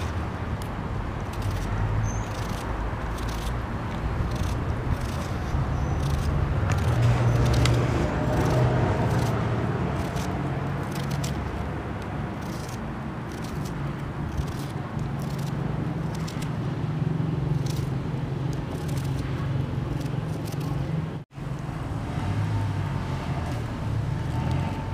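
Small kitchen knife cutting through a peeled onion held in the hand: irregular short crisp clicks, several a second, over a steady low rumble. The sound cuts out for an instant near the end.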